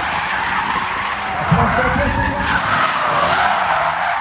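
Tyres squealing as a car drifts under power, over the engine's low running note, which rises briefly about one and a half seconds in.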